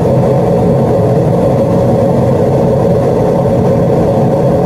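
Gas-fired unit heater running on low fire: a loud, steady hum of burner and fan with a fainter higher tone, unchanging throughout.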